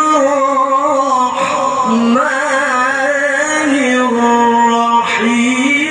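A male qari reciting the Quran in the melodic tilawah style, amplified through a microphone. He holds long notes with wavering ornaments and glides between pitches, dropping lower about two seconds in and rising again near the end.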